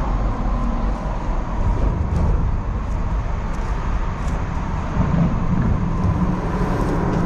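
Traffic on an overhead highway: a steady, loud rumble of tyres and engines.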